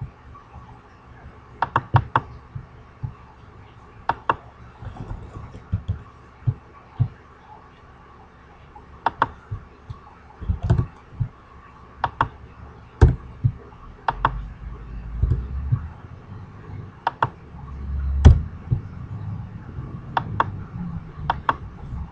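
Scattered sharp clicks of a computer mouse and keyboard keys, a few at a time with pauses between. In the second half a low rumble comes in, with a loud thump about 18 seconds in.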